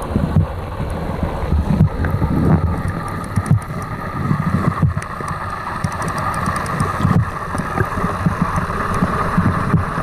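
Stream water running steadily, with wind buffeting the microphone in irregular low rumbles.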